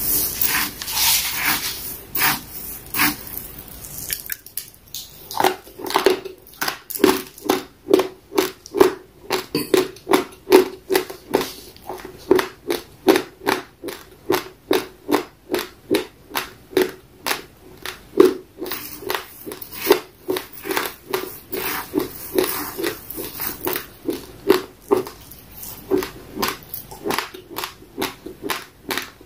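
Close-up chewing of raw basmati rice, the hard dry grains crunching between the teeth in an even rhythm of about two crunches a second. The first few seconds hold a few sharper, uneven crackles before the steady chewing settles in.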